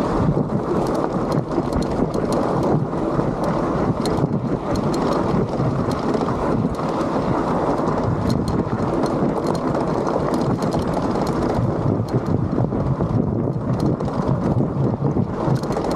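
Wind noise on the microphone and tyres rolling over a rocky trail as a motor-assisted bike descends, with frequent small clicks and rattles from stones and the bike.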